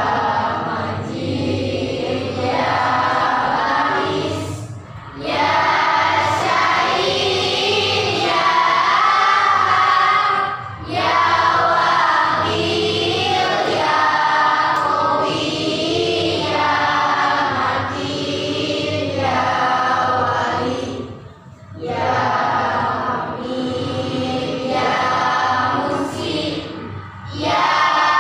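A group of voices singing a song together in chorus, line after line, with brief breaths between phrases.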